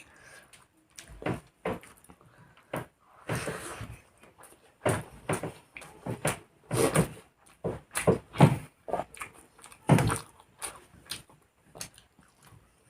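Close-miked eating sounds: irregular chewing and mouth smacks of someone eating fried rice and chicken curry, in short uneven strokes with the loudest a few seconds before the end.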